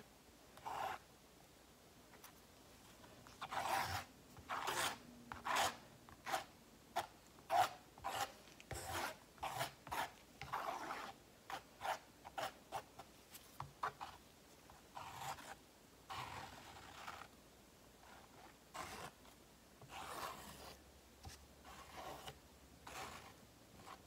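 A paintbrush spreading wet black acrylic paint across a canvas: many short, irregular brushing strokes, beginning a few seconds in, some in quick pairs.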